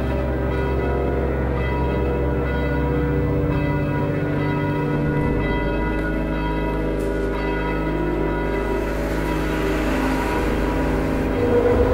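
Ambient intro music through a live PA: sustained, bell-like ringing tones over a low drone whose bass note shifts a couple of times, swelling near the end.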